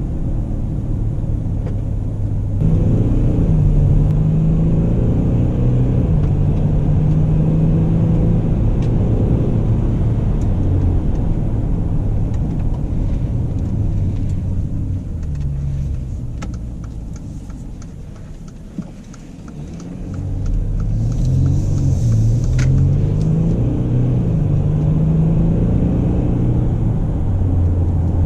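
Mercedes-Benz GLE Coupe driving, engine and road noise. It accelerates with the engine pitch climbing and stepping down through gear changes, eases off so the sound falls away for a few seconds with a regular ticking, then accelerates through the gears again.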